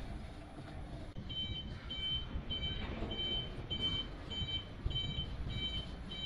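Electric forklift's reversing alarm beeping, a high beep repeating about every 0.6 s that starts about a second in, over a low rumble.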